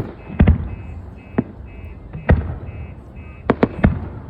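Aerial firework shells bursting: a string of about eight sharp bangs at uneven intervals, two in quick succession near the end. A short high electronic beep repeats about every half second behind them.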